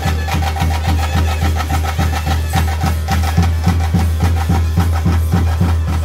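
Live drumming for a bhuta kola ritual: a fast, even beat of about five strokes a second, with a steady high drone tone held over it.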